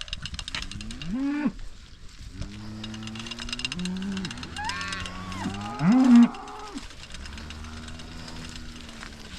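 Dairy cattle mooing: several long, drawn-out calls, some overlapping, the loudest about six seconds in.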